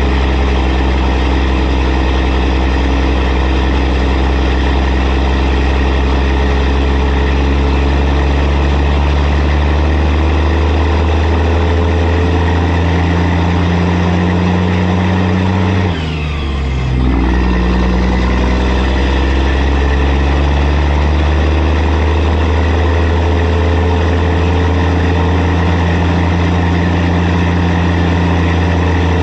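Truck engine running steadily while towing a loaded equipment trailer. About halfway through, its pitch dips briefly and comes back, like a gear change.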